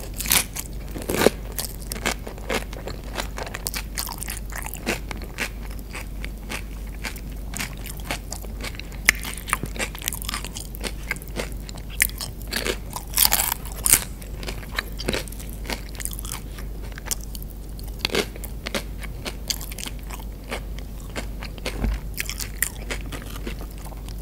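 Close-miked chewing of tortilla chips and burrito bowl food: many small crisp crunches throughout, with louder crunches about a second in and again a little past halfway.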